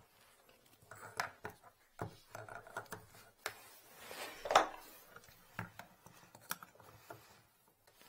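Screwdriver and metal drain fitting in a bathtub drain: irregular small clicks and scrapes as the fitting is worked by hand, with a louder, longer scrape about four and a half seconds in.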